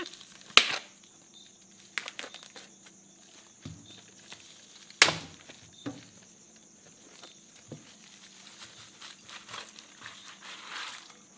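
Kitchen handling noise: a glass bowl knocking on a wooden cutting board, with two sharp knocks standing out, about half a second and five seconds in. Then a plastic bag crinkles and raw liver slides from the bag into the bowl near the end.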